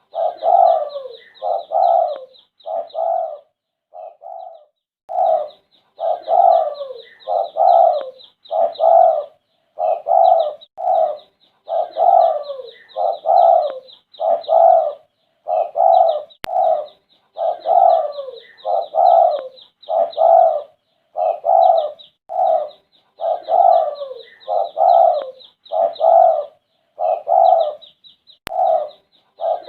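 Spotted dove cooing over and over in rhythmic phrases about a second apart, with a short pause about four seconds in; a fast, high chirping runs steadily behind it.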